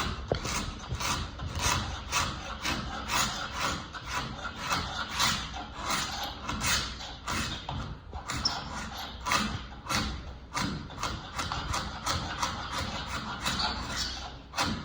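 Carbon-steel hand scraper drawn repeatedly over old oak stair wood, stripping off a brittle varnish and primer coat in short scraping strokes, about two or three a second.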